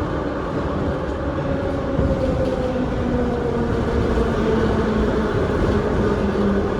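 Moscow Metro 81-717 subway train running, its traction motor whine falling steadily in pitch over a low rumble as the train slows toward a station stop.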